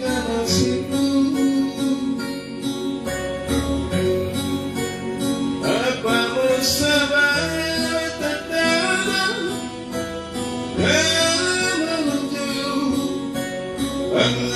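Background music: a guitar-led song with singing.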